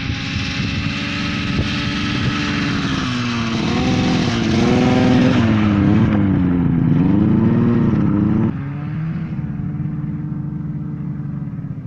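Older Ski-Doo snowmobile's two-stroke engine running under throttle, its pitch rising and falling as it is revved, loudest as it passes close by. About eight and a half seconds in it drops suddenly to a quieter, steadier note.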